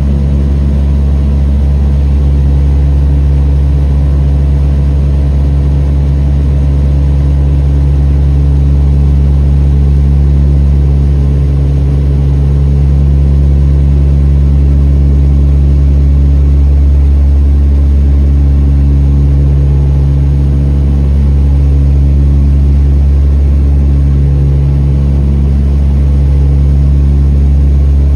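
Turboprop engines and propellers of an airliner in flight, heard inside the cabin: a loud, steady, deep drone with a few steady tones over it, swelling slightly now and then.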